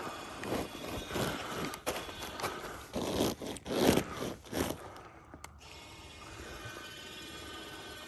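Vinyl of a deflated inflatable slide scraping and crinkling against a plastic tarp as it is rolled up tight, in irregular bursts that are loudest in the middle and then settle into a quieter, steady rustle.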